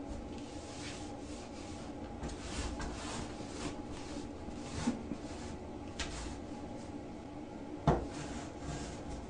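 A cloth rug being dragged across a tiled floor and pulled under a door by an animal's paw: soft rubbing and scraping in short pulls, with a light knock about five seconds in and a sharp, louder knock near the end, over a steady background hum.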